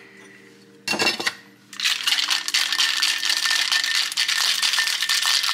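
Ice rattling hard inside a stainless steel Boston cocktail shaker as a drink is shaken, a fast steady clatter starting about two seconds in. It follows a short metallic clatter about a second in.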